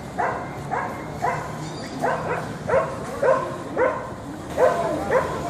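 South American sea lions barking, a run of about ten short calls coming roughly twice a second.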